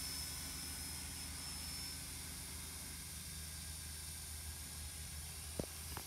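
Faint steady hum of a RISE Archon drone's motors and propellers in flight overhead, with one short tap about five and a half seconds in.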